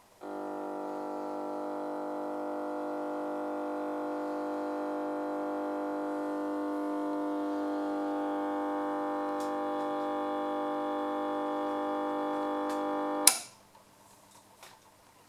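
Sound from a Kriesler bakelite mantel radio's loudspeaker: a steady chord of many held tones that comes in suddenly and grows slowly louder. It cuts off with one sharp, loud click about thirteen seconds in.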